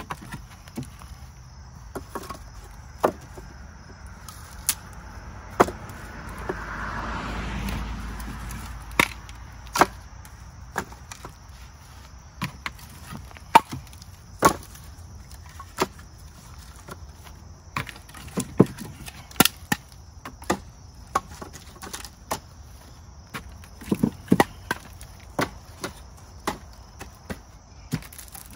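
Split firewood pieces knocking against each other as they are lifted from a pile and stacked into a wooden bundling frame: sharp, irregular wooden clacks, one or two every second or so.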